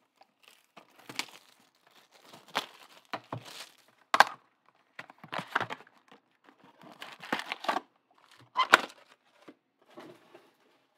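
Trading-card pack wrappers crinkling as the packs are pulled out of a box and stacked, with a couple of sharp taps, the loudest about four and nine seconds in, as packs are set down on the pile.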